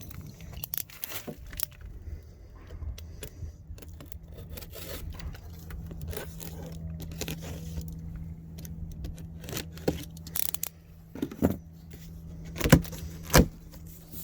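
Cardboard boxes and packaging being handled and opened: scraping, tearing and rustling with scattered clicks, over a low steady hum. Two sharp knocks about a second apart come near the end.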